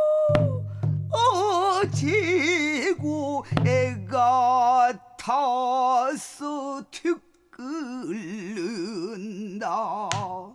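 A male pansori singer singing a slow, wailing passage with wide, wavering vibrato, in phrases broken by short pauses. A low sustained accompaniment tone sounds under the first half.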